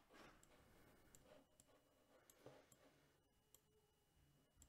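Near silence: faint room tone with a few faint, sparse clicks.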